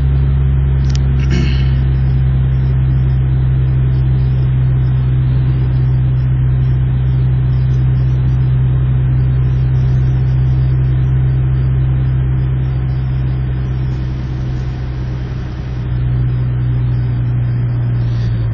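Honda Civic engine and road noise heard inside the cabin while driving at a steady speed: a loud, steady low drone. A brief rattle about a second in, and the drone eases slightly near the end.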